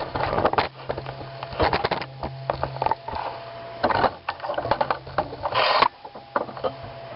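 Handling noise as a camera is moved and repositioned close up: irregular clicks, knocks and rustling, over a steady low hum.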